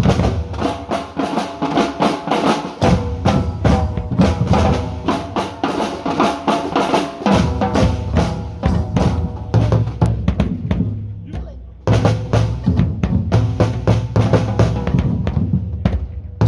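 Drums and percussion playing a fast, steady rhythmic groove with bass drum and snare strikes. The high-end hits drop away from about ten seconds in, and full playing comes back with a sudden loud entry at about twelve seconds.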